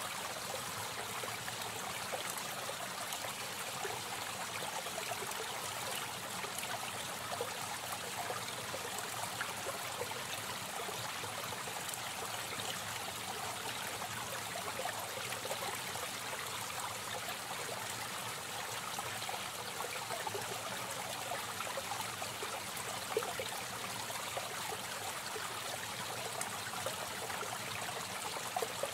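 Aquarium water trickling and splashing steadily, as from a running filter return, with a fine, even crackle of moving water.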